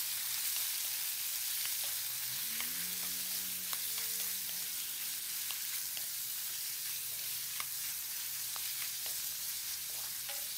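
Cut pork belly sizzling steadily as it stir-fries in hot oil in a pan, with a wooden spatula scraping and clicking against the pan now and then.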